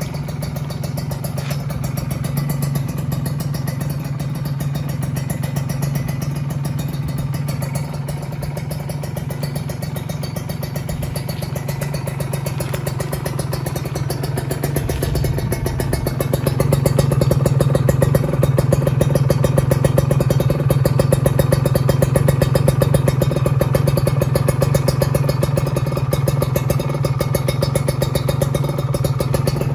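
A Kawasaki Ninja 150RR's two-stroke single-cylinder engine running steadily through an aftermarket CMS exhaust, on a fully stock engine. It gets louder from about halfway, when the engine speed is held a little higher.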